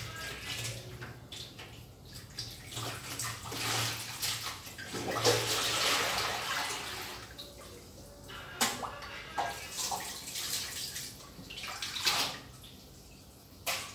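Tap water running and splashing in a kitchen sink as leafy greens (sawi, mustard greens) are rinsed by hand, with a few sharp knocks; the water stops near the end.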